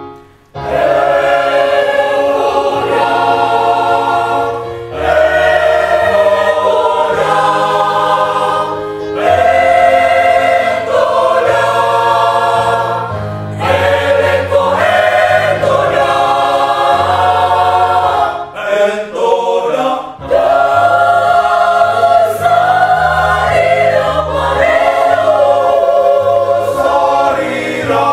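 Mixed choir of women's and men's voices singing in harmony, phrase after phrase with short breaks between. The singing begins about half a second in after a brief pause.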